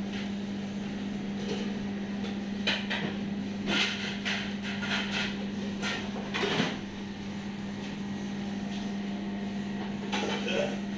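Background kitchen noise: a steady low hum with scattered knocks and clatter, the loudest about six and a half seconds in and a few more near the end.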